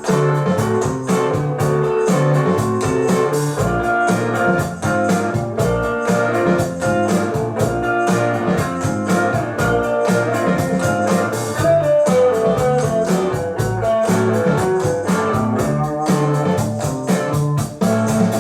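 Guitar-led blues-rock music with a steady beat, played back through Mission M71 bookshelf speakers.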